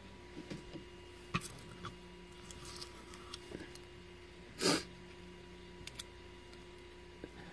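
Small clicks and taps of a Sargent lock cylinder and a thin metal tool being handled in the fingers, with one louder short swishing noise a little past halfway. A faint steady hum runs underneath.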